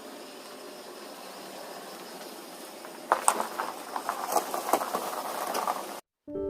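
Steady low running noise of a car while driving, then from about three seconds in a louder run of clicks and rustling handling noises that cuts off abruptly.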